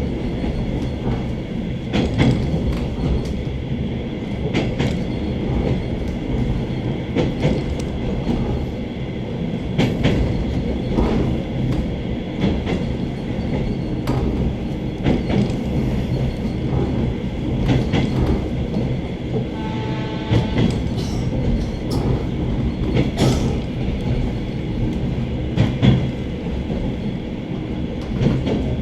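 A suburban passenger train running along the line, with a steady low rumble of the carriage and the clicking of wheels over rail joints every second or two. A brief pitched tone sounds about two-thirds of the way through.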